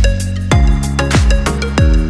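Electronic background music: a deep kick drum that drops in pitch hits about every 0.6 seconds, over sustained bass and synth notes.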